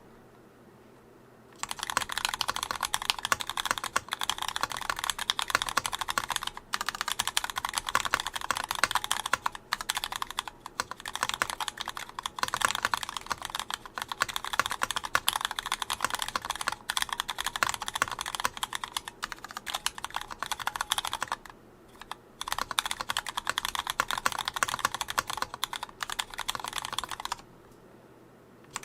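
Continuous typing on a Gon MX Mini custom keyboard with stock retooled Cherry MX Black linear switches, not yet lubed, and a sorbothane-filled bottom case: rapid key clacks in long runs. The typing starts after a short silence, breaks off briefly about two-thirds through, and stops again near the end.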